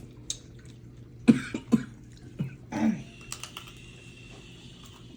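A person coughing and making short vocal sounds: four sudden bursts within about two seconds.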